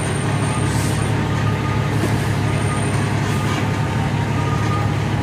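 Heavy truck's engine running steadily as it drives, heard from inside the cab as a constant low hum.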